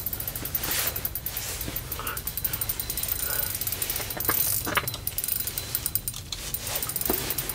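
Ice-fishing reel clicking in a fast, even run of ticks as a hooked lake trout is played on the line, with a few short knocks.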